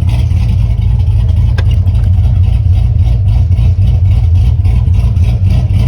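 Chevy car engine idling steadily with a deep, even low rumble. A single faint click about one and a half seconds in.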